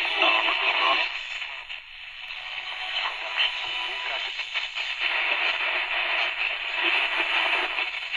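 Magnavox 89 pocket radio's small speaker giving out AM reception while the dial is being turned: a station's audio mixed with static, fading to weaker hiss about a second in and then coming back up with another signal.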